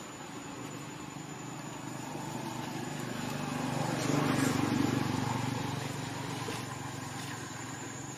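A motor vehicle passing by: its engine hum grows louder for about three seconds, peaks near the middle and then fades away.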